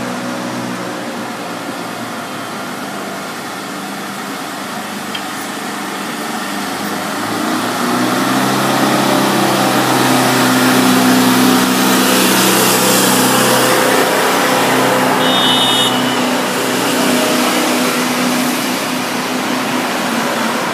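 NAW BT-25 trolleybus passing close by in city street traffic, with a steady electric hum that swells and is loudest about halfway through as it goes past.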